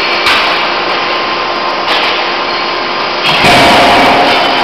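Steady machine noise from a C92K-25KJ hydraulic die-forging hammer running, with no hammer blows. The noise grows louder and fuller about three seconds in.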